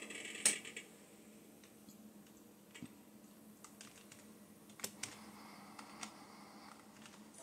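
Scattered keystrokes on a computer keyboard, typing a command at a DOS prompt, with one louder click about half a second in.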